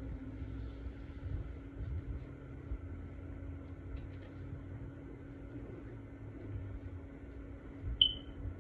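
A steady low hum with faint low rustling, and about eight seconds in one short, high-pitched yelp from a Maltipoo puppy play-wrestling with its littermates.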